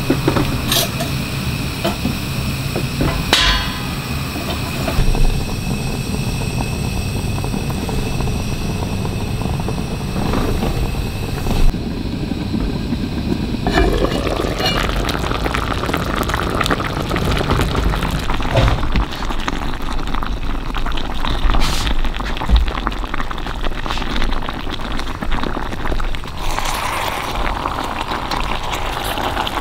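Tomato sauce and stuffed cabbage simmering in a lidded cast-iron Staub pot on a gas burner, a steady bubbling, sputtering crackle of the braise at a low boil.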